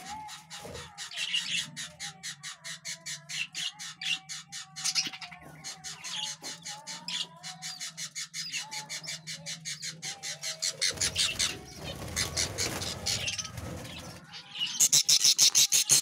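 Budgerigars in a nest box giving fast, repeated squawking chirps, several a second. About fifteen seconds in they turn much louder and shriller.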